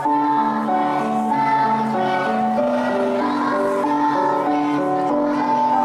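Music: a group of young children singing a song together over an instrumental accompaniment, the melody moving in steady held notes.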